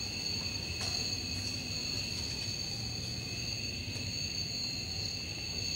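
Crickets chirping steadily, a continuous high-pitched chorus, over a low background hum, with a faint knock about a second in.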